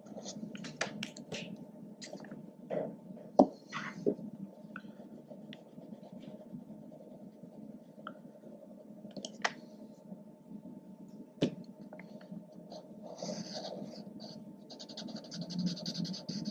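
Drawing tools working on kraft paper: scattered light taps and clicks of a marker and a grey pastel stick, one sharp click a little over three seconds in, then scratchy rubbing near the end as a marker lays dark tone onto the paper. A faint steady hum runs underneath.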